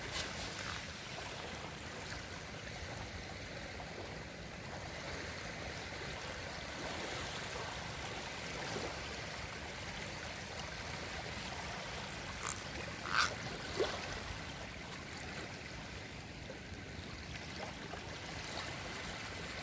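Shallow sea water lapping and trickling along the shore in a steady wash, with a few short sharp sounds about two-thirds of the way through.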